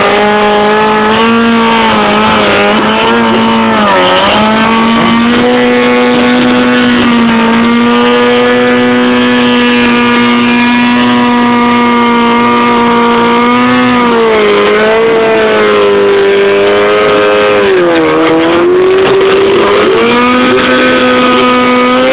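Motorcycle engine revved hard and held at high revs, its pitch dipping briefly a few times as the throttle eases and opens again.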